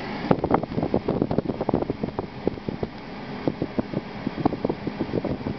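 Wind buffeting the camera microphone, a rough run of irregular crackling pops.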